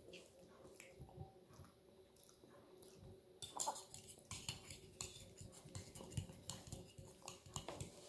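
Faint clinks and scrapes of a metal fork twirling spaghetti against a spoon and a ceramic plate, mixed with soft chewing. The small clicks come thicker and louder from about three and a half seconds in.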